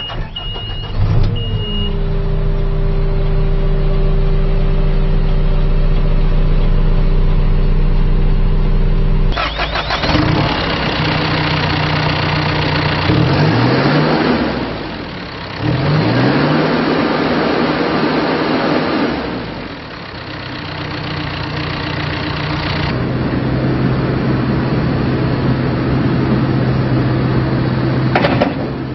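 John Deere 310K backhoe's diesel engine starting after a short high beep, then running steadily. About nine seconds in it gets louder and the engine speed sags and recovers twice, before settling back to a steady run near the end.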